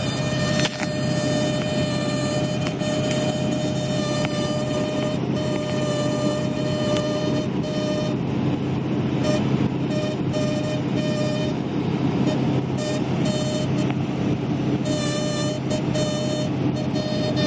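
Wind noise on a 2011 Ford F-350 pickup driving into a headwind, heard inside the cab: a high, steady whine over road rumble, which starts to waver on and off about halfway through.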